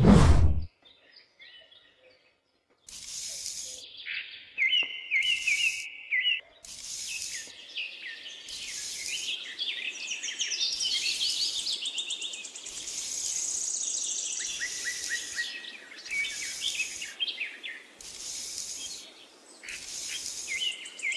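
Small birds chirping and twittering, with short scraping swishes about every second and a half as a small metal hoe and trowel scratch lines into sand. Both start about three seconds in.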